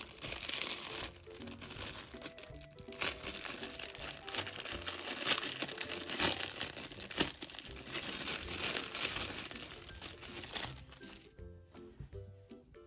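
Clear cellophane wrapping crinkling and rustling in irregular bursts as a small folded garment is unwrapped, dying down near the end, over soft background music.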